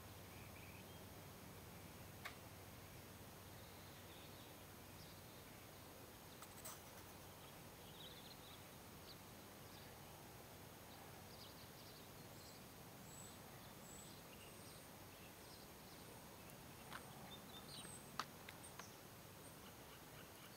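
Near silence: faint outdoor ambience with scattered faint bird chirps and a few soft clicks, the sharpest near the end.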